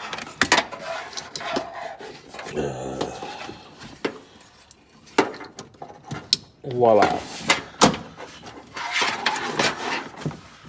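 Sharp plastic clicks and rattling of automotive wiring connectors being handled and plugged together, with a few distinct clicks spread through.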